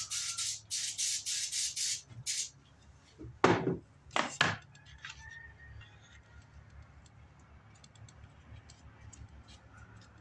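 Quick hissing strokes, about three a second, then two louder rasping sweeps about a second apart and a few faint clicks: sandpaper and a wood block being worked by hand while a sanding block is made.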